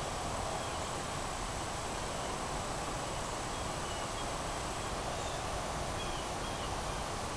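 Quiet woodland ambience: a steady even hiss with a thin high insect whine that stops about two-thirds of the way through, and a few faint bird chirps.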